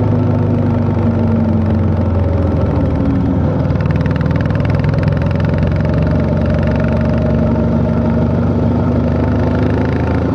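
Honda CB350 H'ness's air-cooled single-cylinder engine running while riding, a steady thump whose pitch eases off a little a couple of seconds in and then picks up again.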